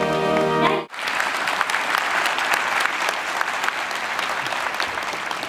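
Background music that cuts off abruptly about a second in, followed by a large audience applauding steadily.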